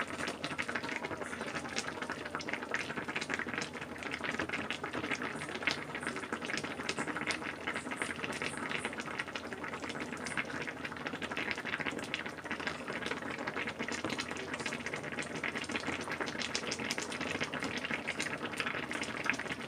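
Sukiyaki broth simmering in its pot: a steady bubbling with many small crackles and pops.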